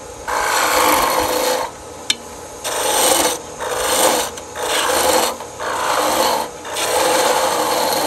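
Wood-turning gouge cutting a cove in a spinning spindle blank on a Shopsmith lathe: a run of about six scooping cuts, each a rasping scrape lasting up to a second or so, with short pauses between.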